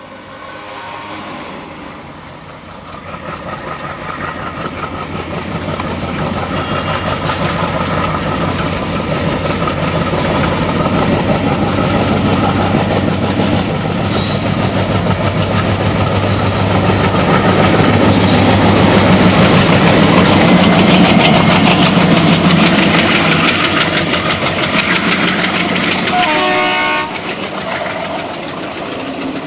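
WDG-3A ALCo diesel locomotive's 16-cylinder engine chugging hard under load, with a steady high whine. It grows louder as the locomotive approaches and passes, then drops away suddenly near the end, leaving the passenger coaches rolling past.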